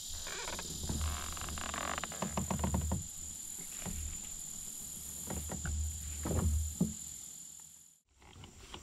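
Pond wildlife: insects keep up a steady high-pitched drone while frogs croak, mixed with scattered knocks and handling noise. Everything cuts off suddenly about eight seconds in as the camera battery dies.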